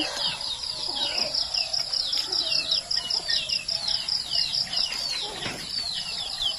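Many small birds chirping, a dense run of quick falling chirps several times a second, over a steady high pulsing trill.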